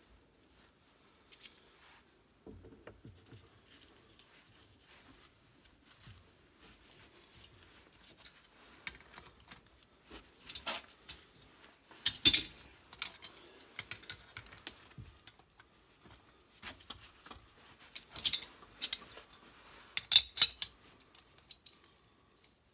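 Metal wrenches clinking and scraping on brass pipe fittings as the fittings are worked and tightened. Scattered sharp clicks and knocks, loudest about twelve seconds in and in short clusters near the end.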